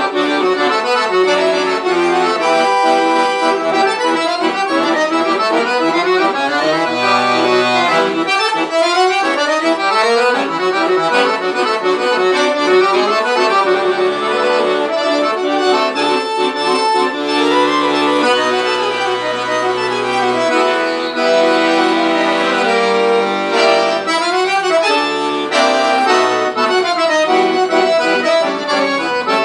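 Piano accordion played solo: a fast-moving melody on the treble keyboard over sustained chords and low bass notes from the left-hand buttons, without a break.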